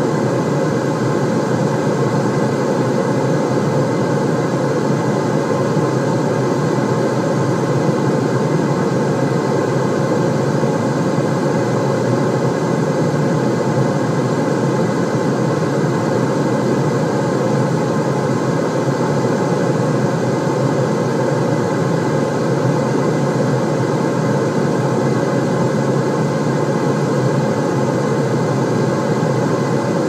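Steady white-noise track with most of its weight in the low range, a deep, even rushing sound that does not change at all.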